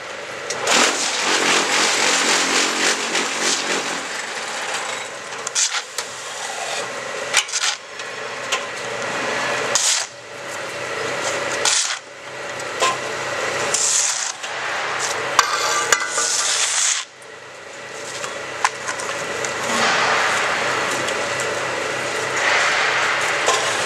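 QTJ4-26A concrete block making machine running: a steady machine hum under a loud rattling, rasping noise, broken every few seconds by short drops in level and sharp knocks as it works through its moulding cycle.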